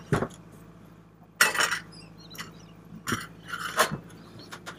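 Small metal parts clinking and rattling in the hand: the steering wheel's retaining nut and washer, just taken off the helm shaft. There are a couple of sharp clinks at the start, a longer rattle about a second and a half in, and more clinks around three to four seconds in.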